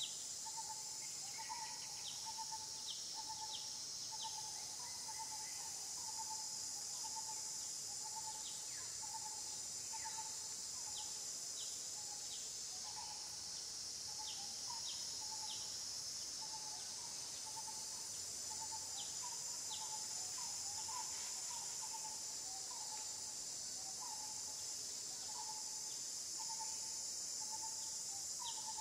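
Steady high-pitched insect drone, with a short call repeated about once or twice a second and scattered faint high ticks.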